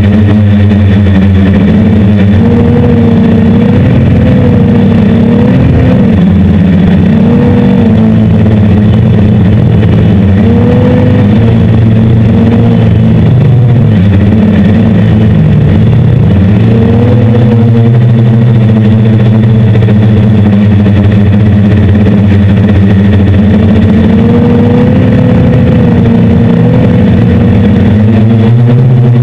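Loud drone of a hexacopter's six electric motors and 10-inch propellers. The pitch rises and falls again and again as the throttle changes during fast, low flying.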